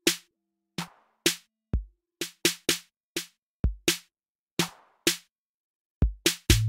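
Slowed-down electronic track made in FL Studio, brought from 134 to 63 BPM: a sparse drum-machine beat of separate kick, snare and hi-hat hits with silence between them, under faint held low synth notes. Two kicks close together near the end.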